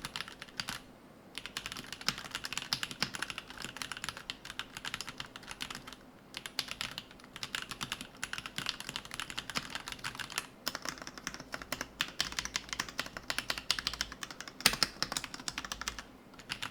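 Typing on a Keydous NJ80 mechanical keyboard with a brass plate, fitted with Shurikey Hanzo ABS keycaps: a fast, steady run of key clacks broken by a few brief pauses, with one louder stroke near the end.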